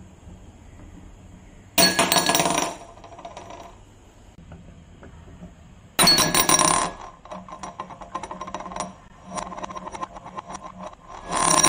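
Glass marble dropping into a wine glass three times. Each drop sets the glass ringing with a bright clink. After the second drop, the marble rattles and spins around the bowl of the glass for about four seconds.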